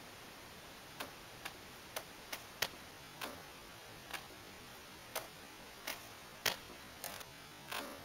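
Katana cutting practice at a standing target: about a dozen sharp clicks and thwacks, irregularly spaced, some coming in quick pairs. The one near the end is slightly longer.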